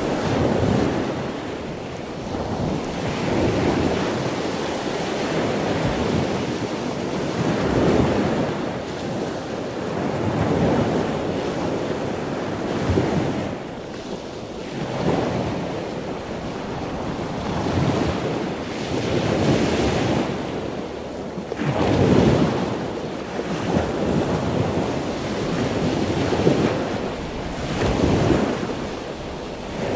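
Small sea waves breaking and washing up a beach, surging and receding every two to three seconds.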